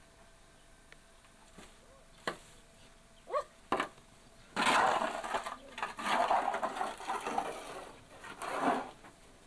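A long-handled tool scraping manure and bedding across the floor of a cow stall in several long, rough strokes, after a few knocks.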